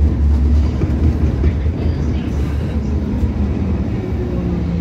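Hong Kong MTR Light Rail Phase III car running along the track, heard from inside the cabin: a steady low rumble, with a faint hum that shifts a little in pitch.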